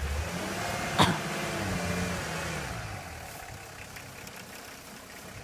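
Nissan Patrol's engine revving up and falling back as it strains, stuck in a deep ditch, with one sharp knock about a second in.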